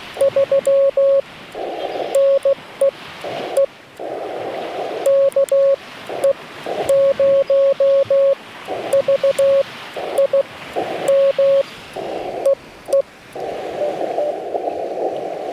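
Morse code (CW) from a Yaesu FT-891 ham radio: a steady tone of about 550 Hz keyed into dots and dashes, with bursts of band hiss through the narrow CW filter in the gaps between characters.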